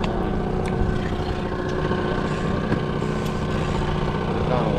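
Mercury outboard motor running steadily at trolling speed, an even engine hum.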